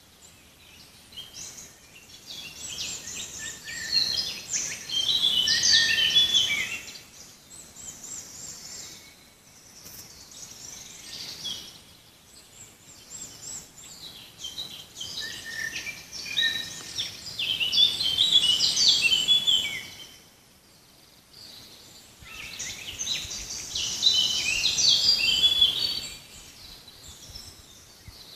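Songbirds singing: three long bouts of rapid, high, intricate song, with quieter scattered calls in between.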